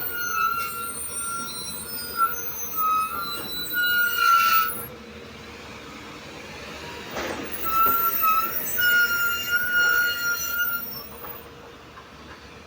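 JCB NXT 205 excavator at work, its metal squealing in two long wavering squeals, the first about five seconds long and the second starting about halfway through, over a steady engine hum.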